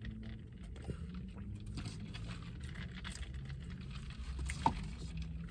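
Steady low hum inside a car's cabin, with faint sips through a straw near the start and one short sharp sound about four and a half seconds in.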